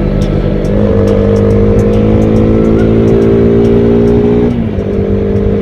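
KTM RC sport bike's single-cylinder engine pulling under acceleration, its note rising slowly, with a short break in the note about four and a half seconds in before it carries on.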